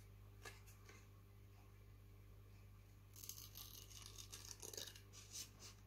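Small scissors snipping through card in a quick run of short, scratchy cuts starting about three seconds in, after a couple of faint clicks, over a faint steady low hum.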